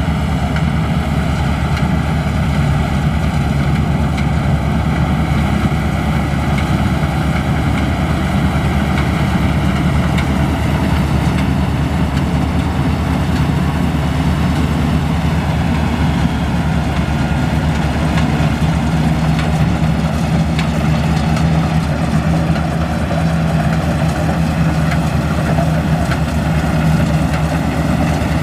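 Maxxi Bimo Xtreme combine harvester running steadily while harvesting rice, its diesel engine and machinery giving a loud, even hum without a break.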